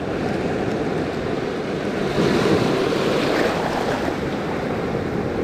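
Salt water sloshing as a cleaned mud crab is rinsed by hand, with wind rushing on the microphone. It swells a little louder for a second or so midway.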